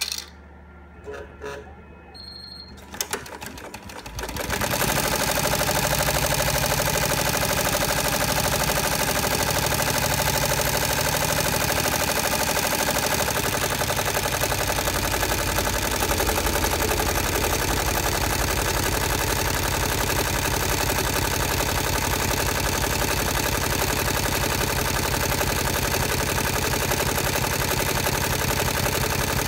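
Multi-needle embroidery machine stitching: after a short, quieter pause with a few clicks, it starts up again about four seconds in and runs with a fast, steady, even needle rhythm.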